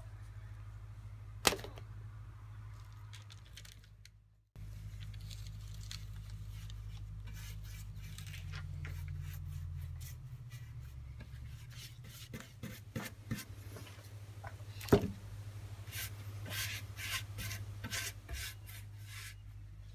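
Newspaper rustling and scratchy paintbrush strokes on wood, with small handling knocks, one sharp knock about three-quarters through, over a low steady hum.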